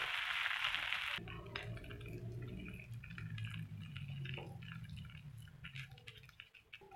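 Bread slices sizzling on a hot grill pan, cut off abruptly about a second in. Then a quieter stretch of soft, wet scraping and small clicks as a silicone spatula spreads mayonnaise-dressed shredded cabbage over a slice, over a low hum.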